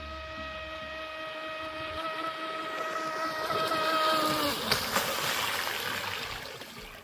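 Electric RC speedboat running across the water: a steady high motor whine over a rising hiss of water, getting louder until the whine cuts off about four and a half seconds in, the hiss then dying away.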